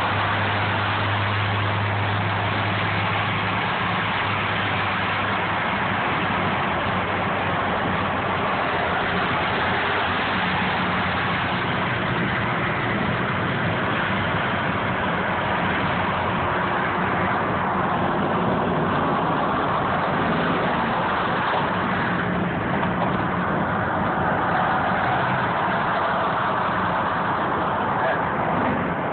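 Steady road and engine noise of a car cruising at highway speed, heard from inside the cabin: an even rush of tyre and wind noise over a low engine drone, the drone strongest in the first few seconds.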